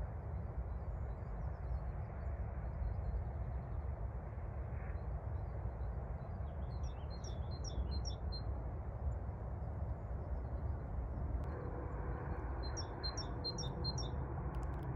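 A songbird singing two short phrases of quick, repeated high notes, about seven and thirteen seconds in, with faint chirps before them. A steady low rumble runs underneath and is louder than the song.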